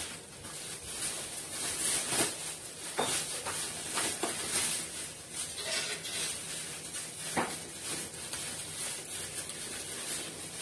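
Rustling and handling noise of things being packed and closed up by hand, with a few sharp clicks and knocks, the sharpest about seven seconds in.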